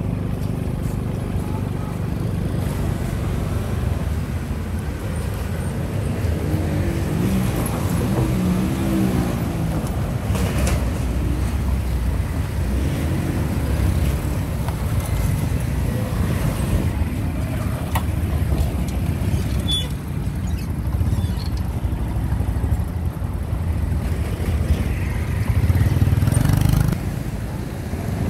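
City street traffic: motorbikes and cars passing over a steady low rumble, briefly louder near the end.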